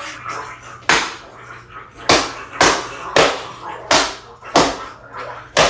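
A series of seven sharp slap-like hits, spaced about half a second to a second apart, each dying away quickly.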